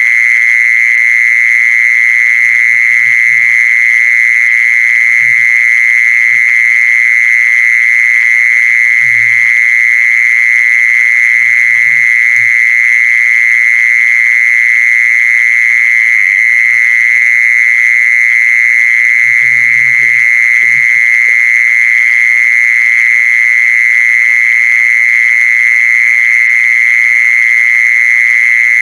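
Loud, unbroken high-pitched buzzing trill held at one steady pitch: the call of the khmol, sounded to lure the female in. A few faint low thumps are heard now and then underneath.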